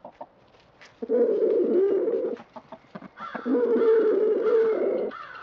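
Chickens calling: two long, drawn-out calls of about one and a half and two seconds, with a short gap between them.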